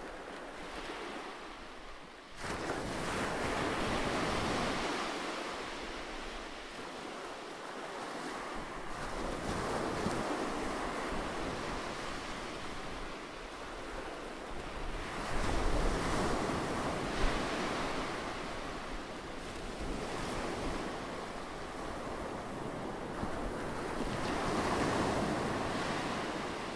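Ocean surf as a background sound bed: waves rushing in and drawing back, the wash swelling and fading every few seconds.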